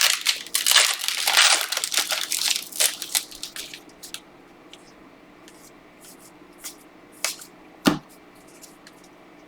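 A trading card pack's wrapper being crinkled and torn open in quick bursts for about the first four seconds. After that come a few light clicks of cards being handled and one sharper knock near the end.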